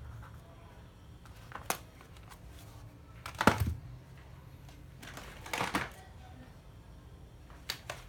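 Hard plastic cordless drills being handled and set down on a surface: a few separate knocks and clacks, the loudest a short clatter about halfway through.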